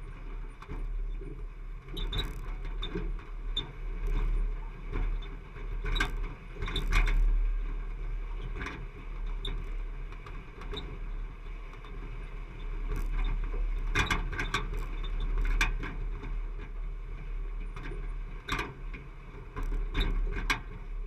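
Jeep driving slowly over a rocky trail, heard from a camera mounted on its front: a low steady rumble with frequent knocks and rattles as it jolts over the rocks.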